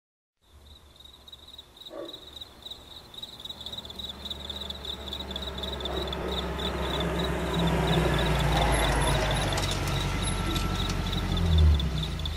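High, steady insect chirring that pulses rapidly, over a low rumble that slowly swells louder.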